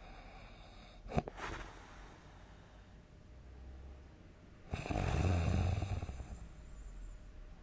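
A person snoring heavily in sleep: a short sharp snort about a second in, then one long loud snore with a low buzz starting about halfway through and tailing off.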